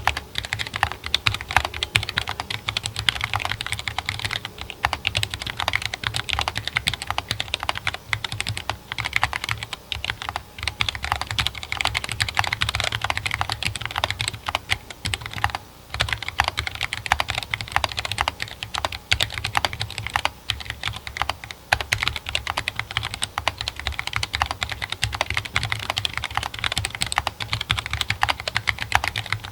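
Continuous fast typing on a Treadstone32 mechanical keyboard with stock Gateron Ink Yellow linear switches and MDA-profile keycaps: a dense run of key clacks, with one brief pause about halfway through.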